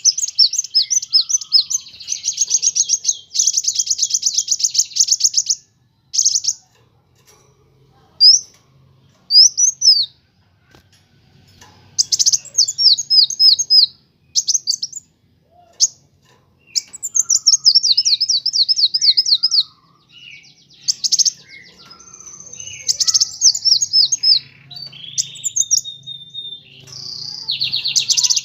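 Sunbird chirping in fast trills of high, sharp notes, in bursts of a few seconds broken by short pauses and scattered single calls.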